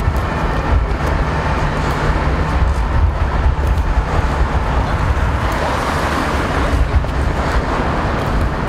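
Steady city road-traffic noise, a constant low hum of passing cars with no single event standing out.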